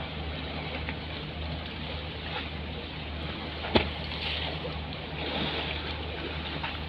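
Steady low drone of a ferry's engines under the rush of rough waves and wind on the microphone, with one sharp knock near the middle.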